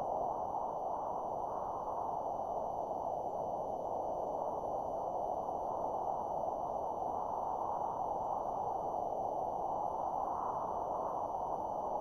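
A steady, muffled rushing noise with no clear events in it, and faint thin high tones held throughout.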